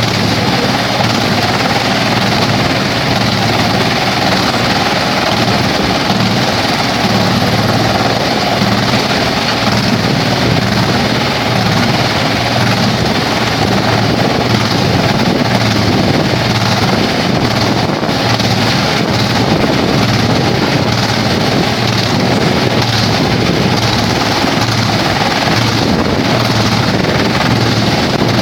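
Vantec forestry wood chipper running, a loud, steady machine drone that holds unchanged throughout.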